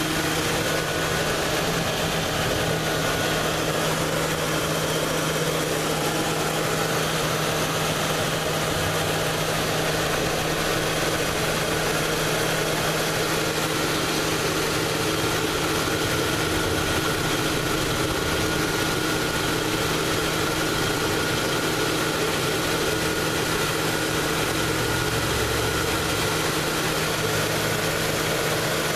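Ford Crown Victoria V8 idling steadily with its A/C compressor switched off, so the compressor is not cycling on and off.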